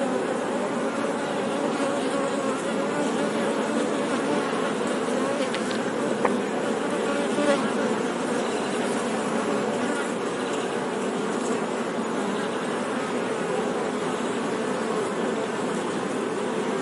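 Many honey bees buzzing together, a steady hum of overlapping, wavering pitches, with two faint clicks about six and seven and a half seconds in.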